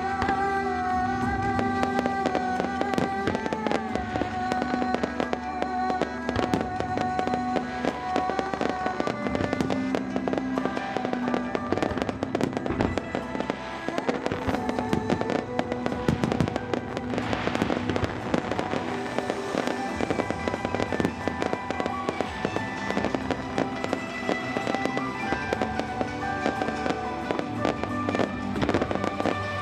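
A fireworks display going off: a steady run of sharp bangs and crackling, thickest about halfway through, over a piece of music that plays throughout.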